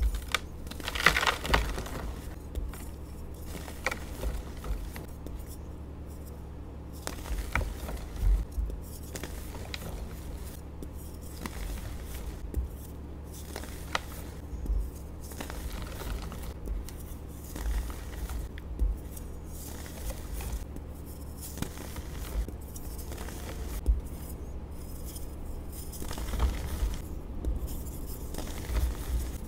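Hands crushing and crumbling soft reformed blocks of dyed gym chalk: irregular soft crunches and powdery rustling, with a few sharper snaps as pieces break apart.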